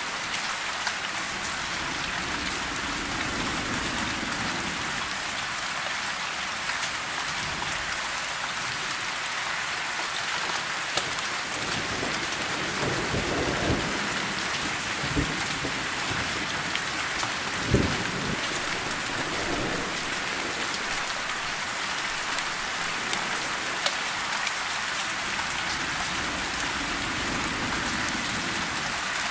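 Steady rain falling, with thunder rumbling a few times around the middle.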